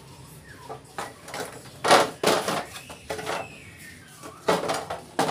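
Hollow plastic knocks and clatters as a plastic bottle crate is set down on a concrete floor and a hard plastic saddle box is handled against it. There are several separate knocks, the loudest about two seconds in and another cluster near the end.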